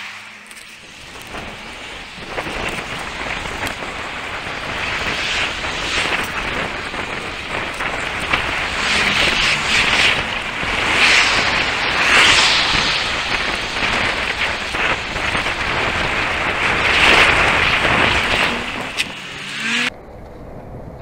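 Wind buffeting the microphone of a camera on a moving mountain bike, mixed with road noise. It builds and swells in gusts as the bike picks up speed, then cuts off suddenly near the end.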